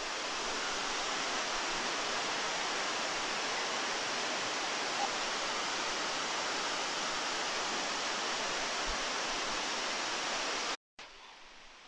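Steady rush of waterfalls pouring into a lake. The sound cuts off suddenly near the end, leaving only a faint hiss.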